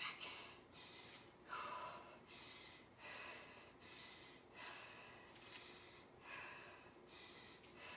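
Faint, rhythmic heavy breathing of a woman exerting herself mid-exercise, in and out breaths following one another in a steady rhythm.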